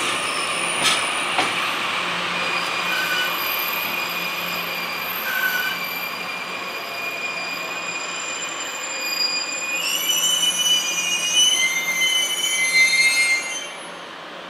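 Shiki-shima luxury train rolling slowly into the platform, its wheels and brakes squealing with high, wavering tones that grow louder near the end. The squeal and rolling noise cut off about 13 and a half seconds in as the train comes to a stop.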